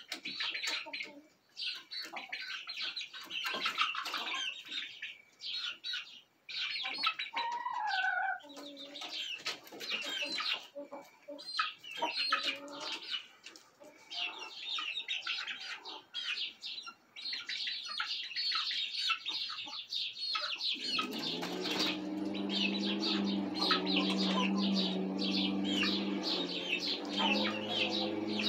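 A flock of young chickens cheeping and chirping almost without pause as they settle on a roost, with a few lower clucking calls and occasional wing flaps. About three-quarters of the way through, a steady low hum joins them.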